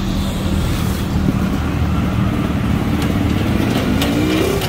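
An engine running steadily, with a slight rise in pitch near the end.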